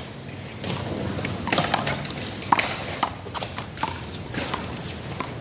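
A one-wall handball rally: a rubber handball being smacked by hand and striking the wall, an irregular series of about five sharp smacks, the loudest about two and a half seconds in.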